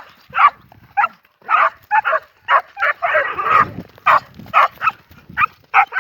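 Cattle dog barking rapidly and repeatedly, about two barks a second, while working a young bull, with one longer, rougher burst about three seconds in.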